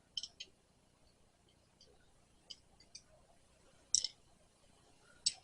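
A handful of faint, sharp metallic clicks spread over several seconds, with the loudest about four seconds in: hand tools working the bolts of a Cat 950M loader tilt cylinder's port cover. The cover is being loosened to let air in and break the airlock that holds the rod in the barrel.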